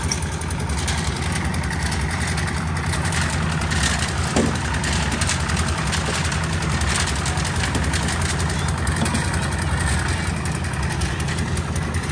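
Engine running steadily at an even speed, with irregular clattering and scraping on top.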